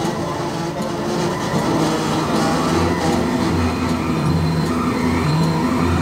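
Fishing vessel's engine and deck machinery running steadily, a low hum that swells and eases every second or so, over the rush of sea spray along the hull.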